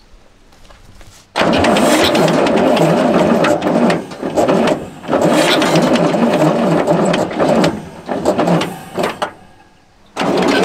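The Kirovets K-700A's V8 turbo diesel being cranked over, a loud rhythmic mechanical churn that starts about a second and a half in and comes in several bursts broken by short pauses, without settling into a steady run; it stops near the end and then picks up again.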